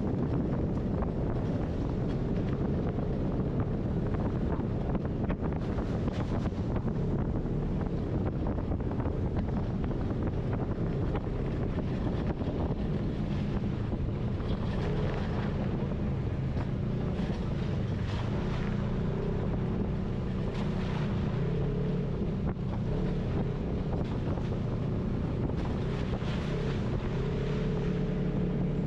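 Polaris RZR side-by-side's engine running steadily while driving on a dirt trail, its note shifting a little with the throttle, with wind buffeting the microphone.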